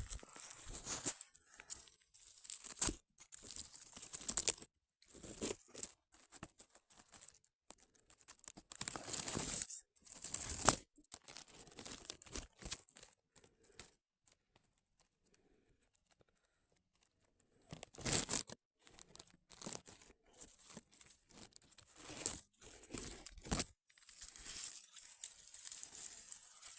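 Irregular rustling and crackling of dry vegetation as a hedgehog pushes and forages through it, in uneven bursts, with a few seconds of near quiet about halfway through.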